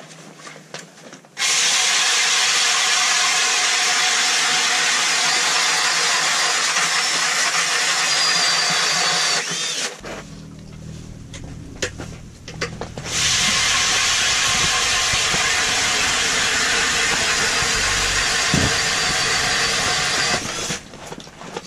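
Drill-powered hand ice auger boring through lake ice, running steadily in two long runs of about eight seconds each with a short pause between.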